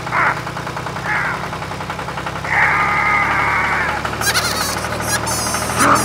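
Tractor engine running steadily at idle, a low even rumble. A patch of hissing noise comes in from about two and a half to four seconds in, and high warbling chirps follow just after.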